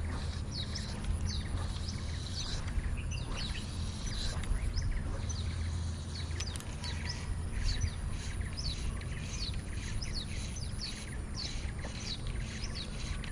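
Birds calling: short, high chirps that slide downward, repeated about twice a second, over a low steady rumble.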